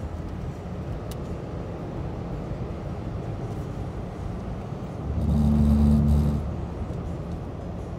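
Car driving on a two-lane road, heard from inside the cabin: steady tyre and engine noise. About five seconds in, a louder low hum holding a few steady tones rises for about a second and a half, then fades back.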